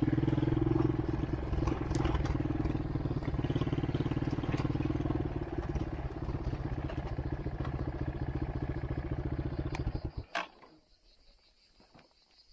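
ATV engine running steadily at low speed, then switched off about ten seconds in. A sharp click follows, and then it is near quiet.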